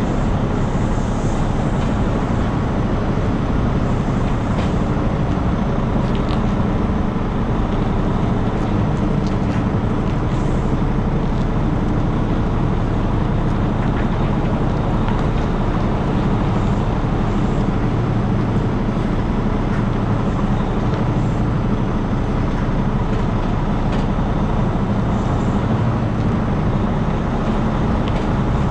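Semi truck's diesel engine running at low revs as the tractor-trailer reverses slowly: a steady rumble.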